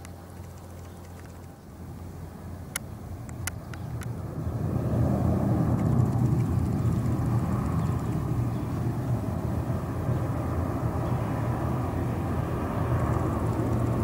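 Arriving airliner's engines: a few faint clicks, then a low, steady rumble swells about four seconds in and stays loud as the plane comes in to land.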